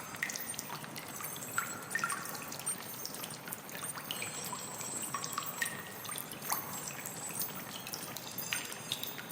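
Water trickling and dripping, with many small pitched plops scattered irregularly over a steady wash.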